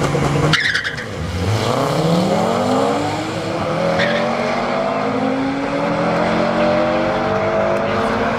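A 2009 BMW 135i's twin-turbo straight-six and a 2004 Subaru Impreza STI's turbocharged flat-four launching side by side in a drag race. Both engines are held at steady revs, then a brief harsh burst comes about half a second in as the cars leave the line. The engines then rev up with rising pitch, with a gear change about four seconds in, and climb again.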